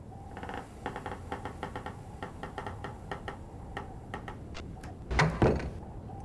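A quick, uneven run of sharp ticks, then two louder knocks about five seconds in.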